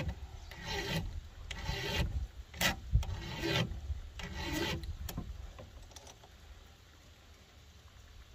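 Flat file rasping across a chainsaw chain's rakers (depth gauges), about two strokes a second, to lower the raker depth. The strokes stop about five seconds in.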